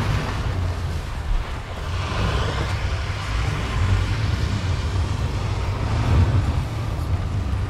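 Ford Ranger pickup's engine running under load as it ploughs into deep snow, its tyres churning and spraying snow.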